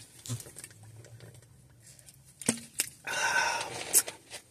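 Light handling noises: a few soft clicks and knocks, with a short rustle about three seconds in.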